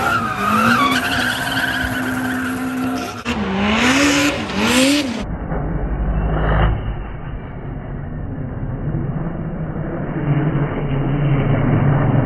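Drift cars sliding with tire squeal. For the first few seconds an engine revs up and down over the skidding tires. After a cut, a farther-off drift car's engine runs steadily over tire noise and rises near the end.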